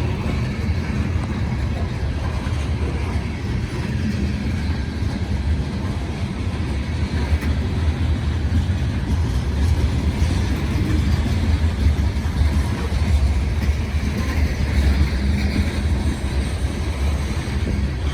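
Freight cars of a long loaded grain train rolling past: a steady low rumble of steel wheels on the rails.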